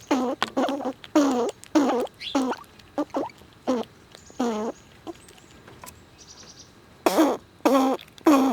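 Squirrel giving a quick series of short calls, each dipping and rising in pitch, about two a second. They pause for a couple of seconds, then resume loudly near the end.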